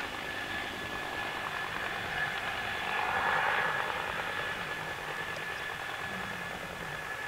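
Bell 212HP twin-turbine helicopter in flight: a steady high turbine whine over rotor and engine noise, swelling slightly about three seconds in.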